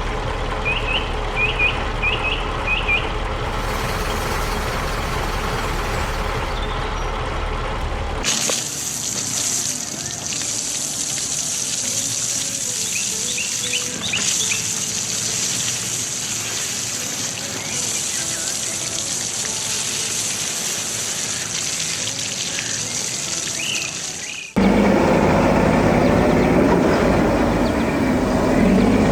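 Cartoon sound effects: a low machine rumble with short bird chirps, cutting about eight seconds in to a steady hiss with scattered chirps. Near the end a louder vehicle engine sound starts suddenly.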